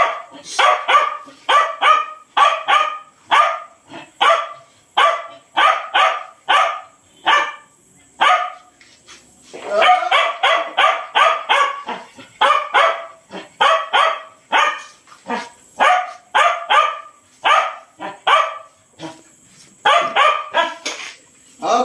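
Dog barking over and over in quick runs of several barks, with short pauses between runs: excited barking at feeding time, waiting for the food bowls.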